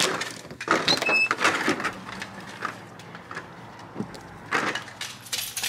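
Patio door knob and latch clicking as the door is opened and shut, with a few knocks and bumps.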